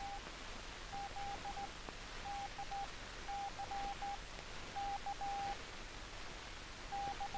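Morse code received on the SCR-274 low-frequency aircraft receiver switched to CW: one steady-pitched tone keyed in short groups of dots and dashes, about one group a second, over a faint background hiss. It is a clean code signal, the sign that the receiver passes its CW test.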